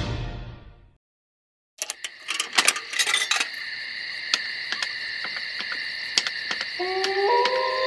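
An electronic siren on a fire-brigade quad (ATV) being switched on: a few sharp clicks, a steady high electronic whine, then, near the end, the siren tone starting up and climbing in steps. The first second holds the tail of a film-studio fanfare fading out, followed by a moment of silence.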